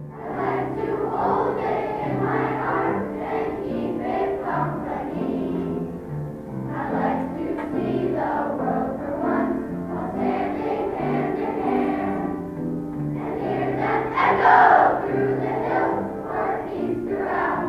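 A large children's choir singing a song together, with the loudest swell about two-thirds of the way through.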